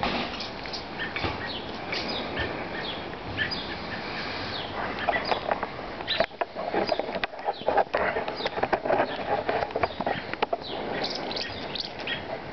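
Birds giving short, falling chirps over and over. From about five to eleven seconds in, a spell of rustling and sharp knocks rises over them.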